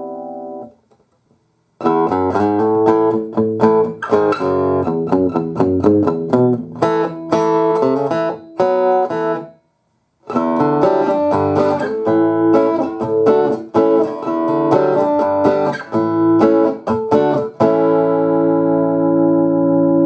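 Guitar played through an amplifier. A ringing chord stops, then comes a quick run of picked single notes with a short break about halfway. More picked notes follow, and a final chord is left ringing near the end.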